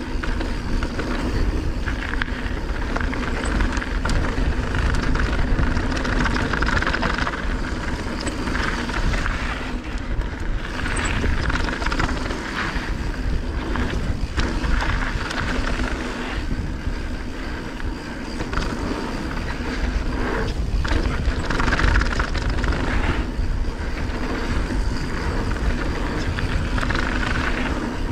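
Mountain bike riding fast down a dry dirt and gravel trail: tyres rolling over loose gravel and hardpack, with knocks and rattles from the bike over bumps, and wind rumbling on the on-board camera's microphone. The tyre noise swells and fades through the turns.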